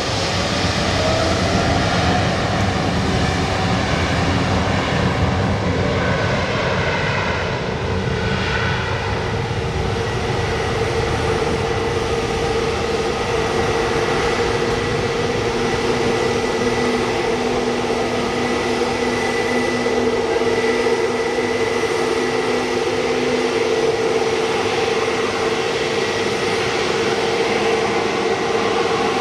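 Jet airliner engines running: a continuous rush of jet noise with a steady whine that grows stronger about a third of the way through.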